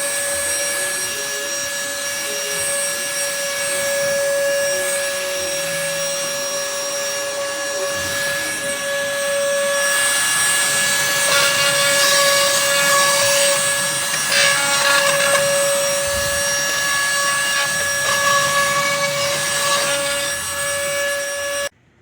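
Small cordless handheld vacuum running with a steady high motor whine. Its nozzle scrapes and rubs against a surface for a few seconds midway. It switches off abruptly near the end.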